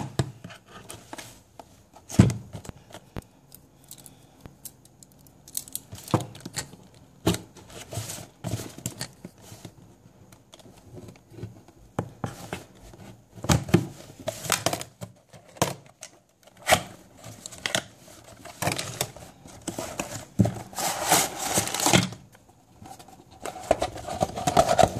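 A cardboard box being opened with scissors: irregular snips, scrapes and clicks of blades and cardboard, with louder stretches of cardboard and packaging rustling in the second half.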